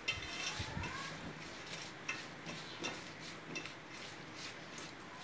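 Diced raw potatoes being tossed by hand with spices in a baking tray: soft, irregular clicks and scrapes of the pieces against the pan.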